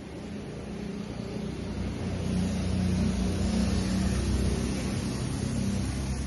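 A vehicle engine running with a steady low hum. It grows louder about two seconds in and eases off a little near the end.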